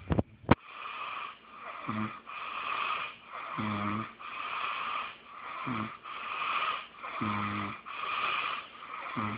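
Loud snoring: wheezy breaths in a regular rhythm about every one and a half seconds, five of them carrying a short, low, rattling snore. A few sharp clicks right at the start.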